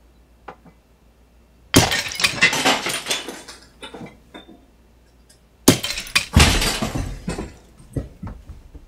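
Two crashes of breaking glass, about four seconds apart. Each is a sudden smash followed by a second or so of clattering and clinking pieces, and the second has a heavier low thud in it.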